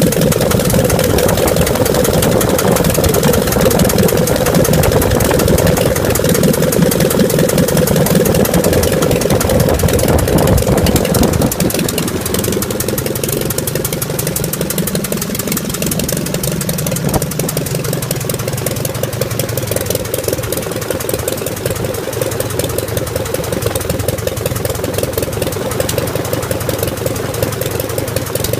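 Aircraft piston engine with a Rotec throttle body injection unit running on a test stand, propeller turning. It runs steadily and loudly at first, then about twelve seconds in it is throttled back and settles into a lower, quieter run.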